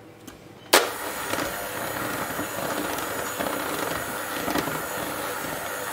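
Electric hand mixer switched on with a sharp click just under a second in, then running steadily, its beaters working through thick muffin batter of flour, Greek yogurt, sugar, melted butter and egg.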